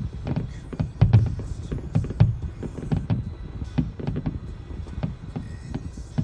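Fireworks finale: aerial shells bursting in a rapid, overlapping barrage of booms and cracks, several a second, the heaviest about a second in and again just past two seconds.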